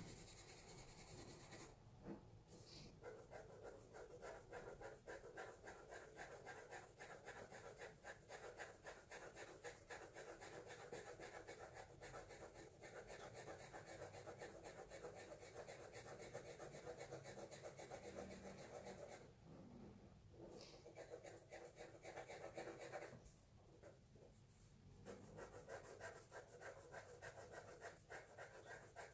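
Pencil shading on drawing paper: fast, faint back-and-forth scratching strokes that stop briefly about two seconds in and twice more about two-thirds of the way through.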